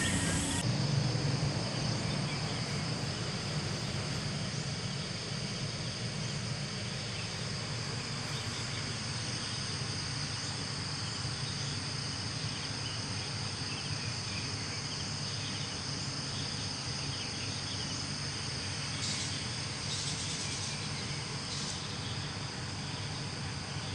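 Steady chorus of insects: several high-pitched trills held at an even pitch, over a low, steady hum.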